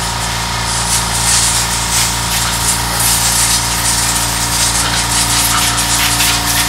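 Compressed-air blow gun hissing as it blows dust off a round scooter drivetrain part. It is a continuous loud hiss that swells and dips.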